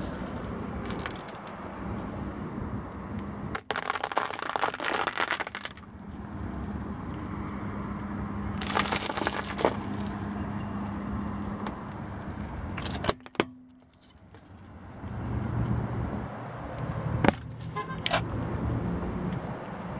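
A car's tyre rolling slowly over small objects on asphalt and crushing them, with several bursts of crackling crunches over the steady hum of the car's engine.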